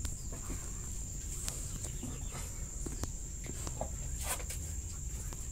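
Quiet farmyard background with a steady high whine and a low rumble, a few faint clicks, and a couple of faint short animal calls just past the middle.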